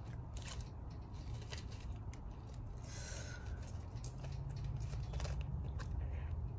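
Crinkling and rustling of a small plastic bag being handled and picked at, with many scattered sharp crackles and ticks, over a steady low hum.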